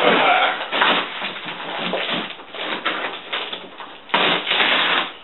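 Cardboard box being ripped apart by hand: irregular tearing and rustling, loudest at the start and again about four seconds in.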